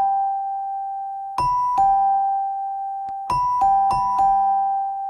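Two-tone ding-dong doorbell chime, a higher note then a lower one, each note ringing on and fading. It rings three times: once about a second and a half in, then twice close together past the middle.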